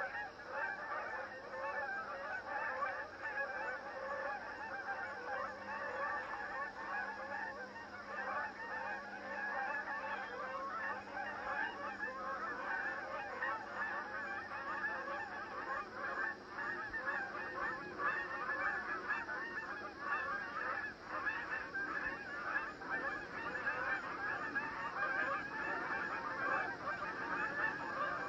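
A flock of Canada geese honking continuously, many calls overlapping into a dense, unbroken chorus.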